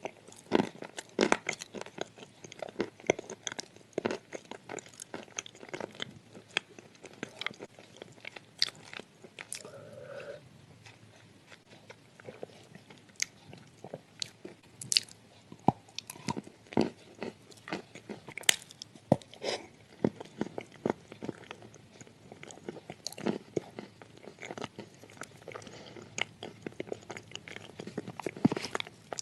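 A person biting and chewing soft sandy clay, with irregular sharp crunches.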